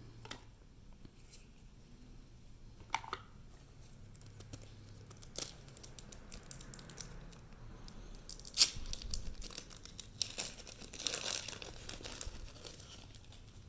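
Foil wrapper of a Pokémon booster pack crinkling and tearing open, with scattered sharp crackles and a longer tearing stretch about eleven seconds in.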